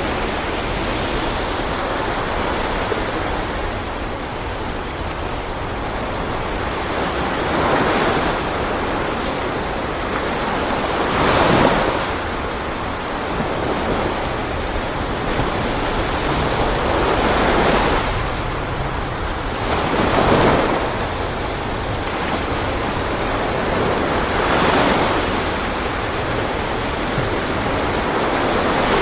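Sea waves washing along the side of a fishing boat's hull, surging louder about every four to five seconds, over a steady rush of wind.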